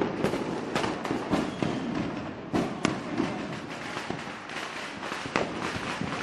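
Fireworks going off: many overlapping, irregularly spaced bangs and cracks over a continuous crackle, with a few sharper bangs standing out.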